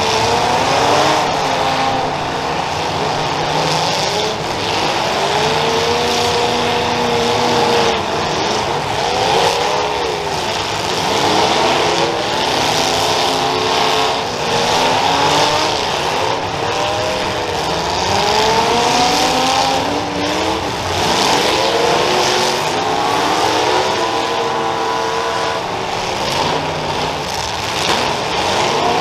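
Several demolition derby cars' engines revving up and down over and over, overlapping, as the cars push and ram each other, with a few short bangs of impacts.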